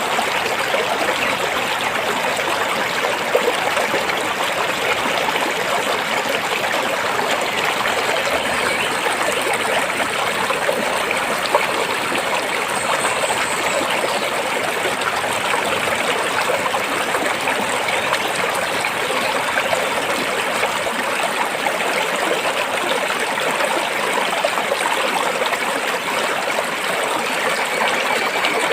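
Stream water flowing over and between rocks: a steady, unbroken rushing and trickling.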